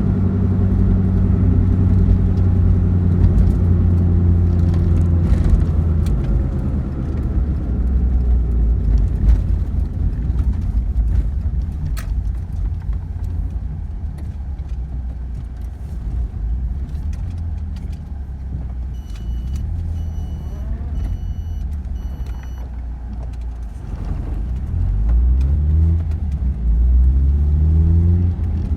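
Car driving, engine and road noise throughout. The engine note eases off through the middle, then climbs and steps up several times as the car accelerates near the end.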